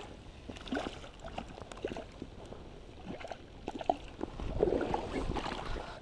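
Shallow river water splashing and sloshing in irregular bursts around a wading angler playing a hooked trout, loudest about five seconds in.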